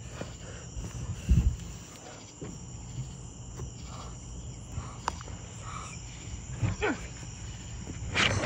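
Steady chirring of insects, with a few scattered clicks and a louder bump about a second in.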